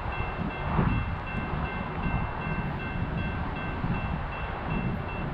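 Railroad grade-crossing bell ringing in the distance with an even repeated ding, over a steady low rumble; the bell stops near the end.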